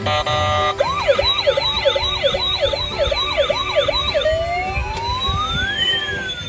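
Toy ambulance's electronic siren sound effect: a short steady tone, then a fast up-and-down yelp about three times a second for some three seconds, changing near the end to a slow rising and falling wail.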